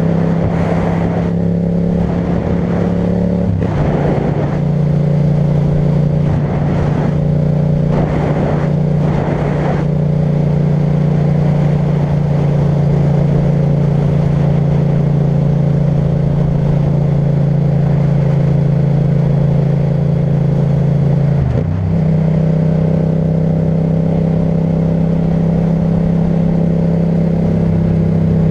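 Yamaha MT-07's 689 cc parallel-twin engine running steadily under way through an Akrapovic titanium exhaust. Its note shifts a few seconds in and again about two-thirds through, with gusts of wind on the microphone during the first ten seconds.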